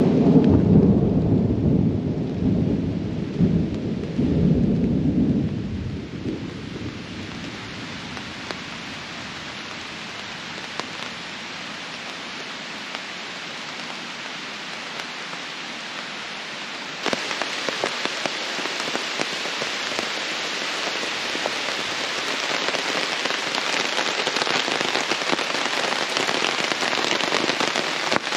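A long rumble of thunder, then steady rain falling on a tarp overhead and the ground around, turning suddenly heavier a little past halfway.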